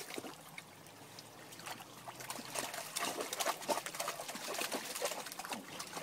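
A dog splashing and paddling about in shallow stream water: irregular sloshes and splashes that grow busier and louder about halfway through.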